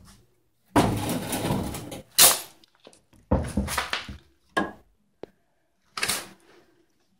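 Scraping and knocking from a storage cabinet being handled: one long scrape about a second in, then shorter scrapes and several sharp knocks.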